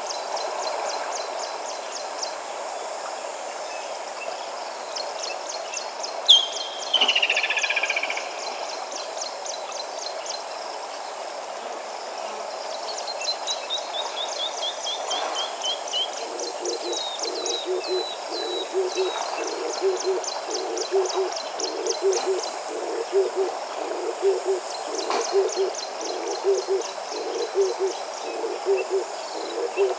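Steady rush of river water under wild bird calls, with a loud falling call about six seconds in and a falling run of notes a little later. From about halfway, a low call note repeats about twice a second.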